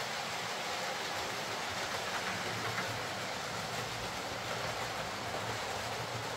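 Hornby OO gauge Class 43 HST model with a Ringfield motor running along the track, a steady running noise of motor and wheels on rail, after a service, a new bulb and a new traction tyre.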